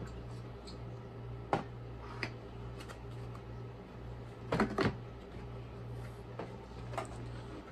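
Scattered sharp plastic clicks and knocks from handling the dust cup and cyclone housing of a Eureka multi-cyclonic upright vacuum, with a quick double knock about halfway through. A steady low hum runs underneath; the vacuum's motor is not running.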